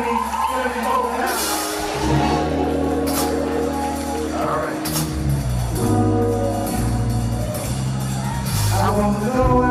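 Live band playing a slow soul tune: electric guitar and bass guitar over held keyboard chords, with voices in the room.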